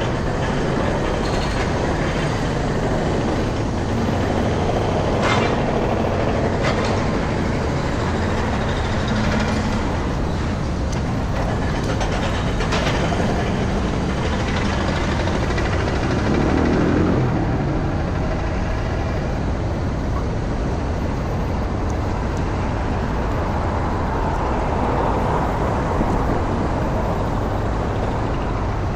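Steady rumble of city traffic, with a few sharp clicks in the first half and a brief swell in the noise a little past halfway.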